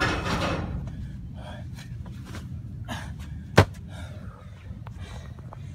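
Heavy, rapid panting from hard exertion, with a loud forceful breath at the start. There is a single sharp thud about three and a half seconds in as a weighted sandbag is dropped on the ground.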